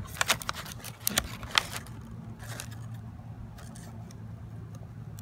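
A few sharp clicks and taps of handling in the first two seconds, then a steady low hum.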